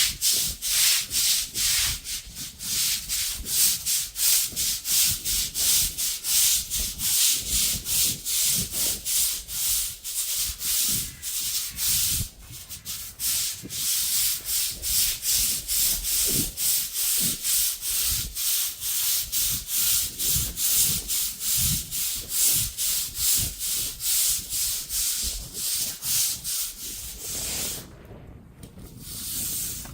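Pressure washer jet hissing against the driveway surface in quick regular pulses, about three a second, dropping off briefly near the middle and again near the end.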